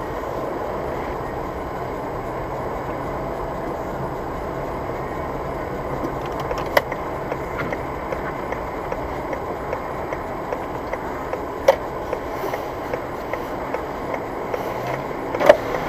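Steady road and engine noise of a car rolling slowly in traffic, picked up by a dashcam inside the cabin. Three sharp clicks break through it, the loudest near the end.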